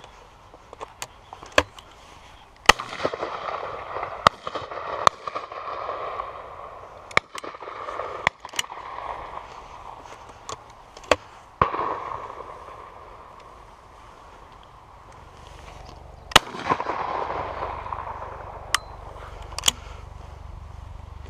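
Shotguns firing at a driven pheasant shoot: about twenty shots at irregular intervals, a few loud and close, most fainter and farther down the line. The loudest shots echo on for a few seconds.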